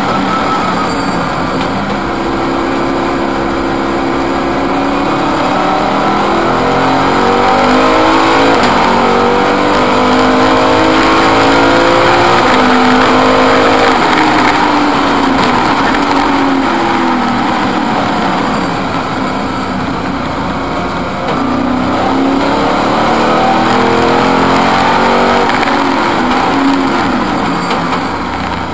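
BMW V8 GTR race car's V8 engine at full race pace, heard from inside the cockpit: the pitch climbs through the gears, dropping back at each upshift, then falls away and climbs again as the car slows for corners and accelerates out.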